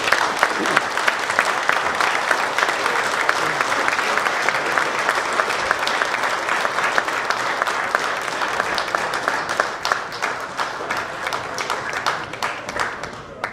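Audience applauding steadily with many hands clapping, tapering off near the end.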